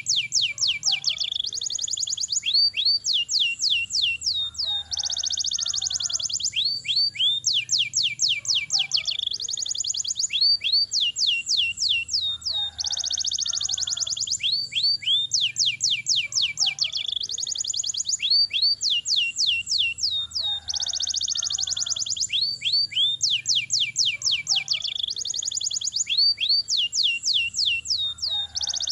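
Domestic canary singing a long, rolling song: fast runs of sweeping notes and buzzy trills, in a phrase that repeats about every five seconds.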